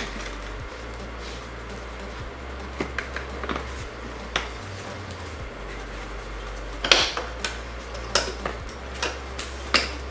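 Scattered clicks and knocks of the car's rear-seat back and its plastic clips being handled and pressed into place, over a low steady hum. The knocks come in small clusters, thickest in the second half.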